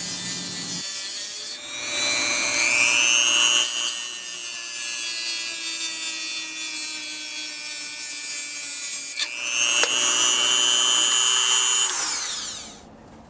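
Variable-speed rotary tool with a diamond cutoff disc grinding through a spinning Pyrex (borosilicate) glass cylinder: a high whine over a gritty grinding hiss. Twice the whine dips and climbs back up in pitch, and near the end it falls away as the tool spins down.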